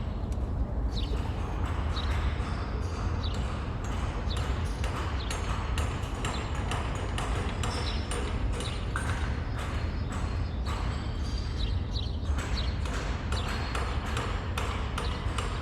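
City street ambience: a steady low traffic rumble under a constant stream of sharp clicks and taps, with short high chirps about once a second.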